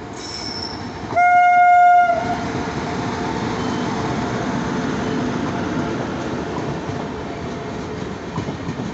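Indian Railways electric locomotive hauling the Vaishali Superfast Express sounds its horn in one loud blast of about a second. The steady rolling rumble of its passenger coaches passing at speed follows.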